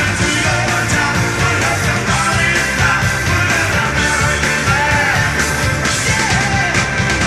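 Rock band playing loud and steady in concert: electric guitar, drums and keyboards.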